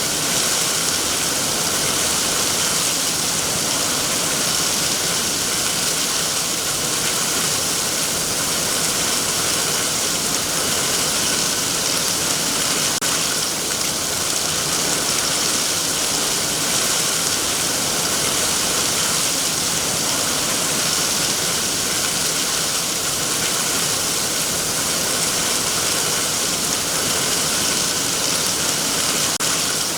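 Heavy rain falling on trees, a steady, even hiss with no breaks.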